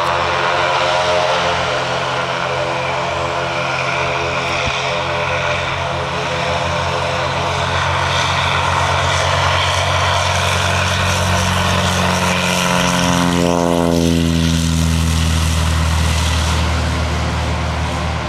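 Socata TB-20 Trinidad's propeller and six-cylinder Lycoming engine on the takeoff run, a loud steady drone. About two-thirds of the way through, its pitch drops as the plane passes close by.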